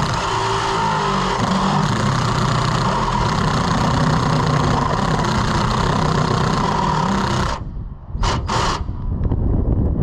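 Power tool motor, most likely the drill used on the van's roof hole, running at a steady speed and then cutting off suddenly about seven and a half seconds in. Two short bursts of noise follow just after.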